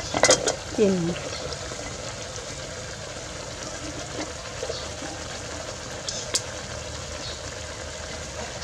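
Vegetables sizzling steadily in a hot metal pot as they are scraped in from a metal bowl, with a sharp metal clank just after the start and a single click about six seconds in.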